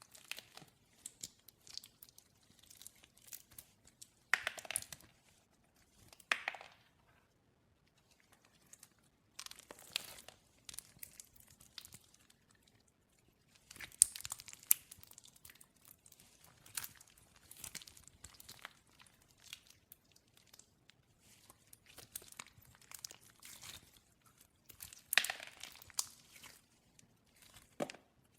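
Glossy slime being worked by hand: sticky crackling and popping as it is stretched, pressed and squished. The sound comes in irregular bursts with short quiet pauses between them.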